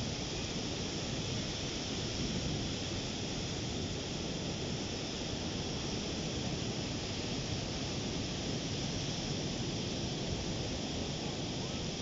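Ocean surf breaking and washing up a sandy beach: a steady, even rush of waves with no single crash standing out.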